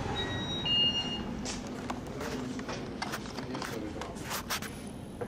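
Two-note electronic door chime sounding as the shop door opens, followed by footsteps and scattered knocks with faint voices in the background.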